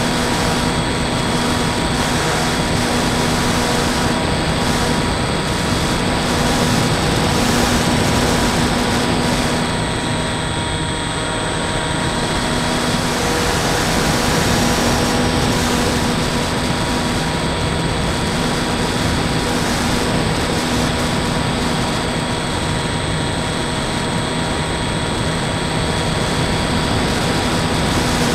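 Bixler 2 RC plane in flight, heard from its onboard camera: the electric motor and pusher propeller humming steadily under heavy airflow rush. The sound eases briefly about ten seconds in, then picks up again.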